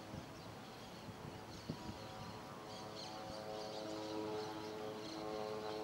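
Distant aircraft engine hum, a steady pitched drone that comes in about two seconds in and grows louder toward the end.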